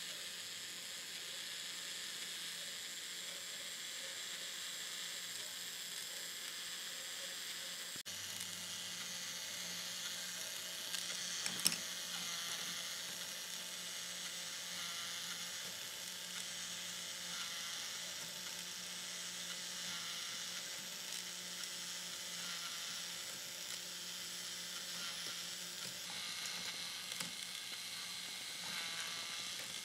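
Electric K'nex motor driving the plastic gears and rotating centre of a K'nex ball-machine lift: a steady whirring clatter of plastic parts, with one sharp click near the middle.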